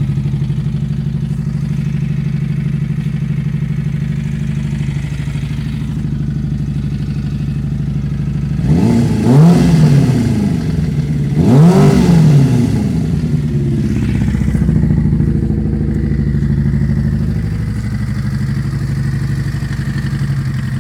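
Engine idling steadily, blipped twice to higher revs and back, with a knock from the clutch side. The owner has fitted a new clutch basket and found the main bearings, crankshaft and valves sound, so the cause is unknown.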